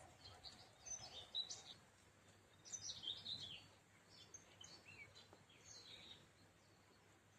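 Faint songbirds chirping in quick bursts of high notes, busiest about a second in and again around three seconds, thinning out after about six seconds, over a faint steady outdoor background hum.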